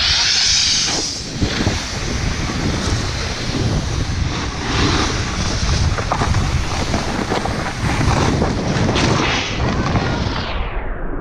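Wind rushing over the microphone while a snowboard slides downhill, its base and edges hissing and scraping unevenly over the snow.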